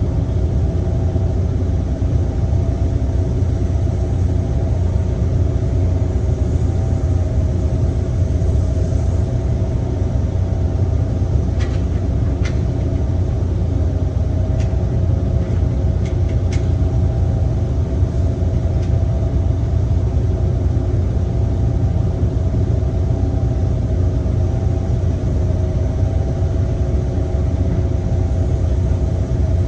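Heavy diesel construction machinery engine running steadily with a low drone. A few short sharp clicks come near the middle.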